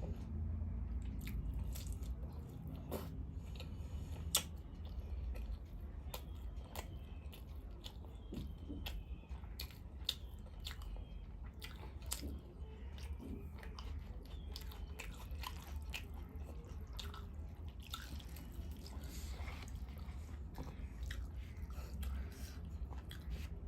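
Close-miked chewing and mouth sounds of a person eating, with frequent small wet clicks and smacks, over a low steady hum.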